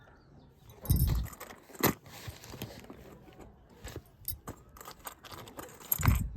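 Small metal jewellery clinking and jingling as it is handled and taken off, with a few soft thumps about a second in and near the end.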